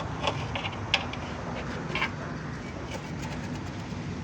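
Compressor motor running with a steady low hum, with a few sharp clicks in the first two seconds.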